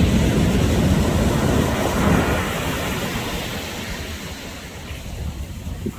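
Ocean surf washing onto a beach: a rush of breaking water that slowly ebbs away over several seconds.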